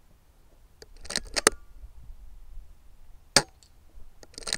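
Rifle being worked and fired at a rat: a group of sharp mechanical clicks about a second in, a single sharp crack about three and a half seconds in, and another group of clicks near the end.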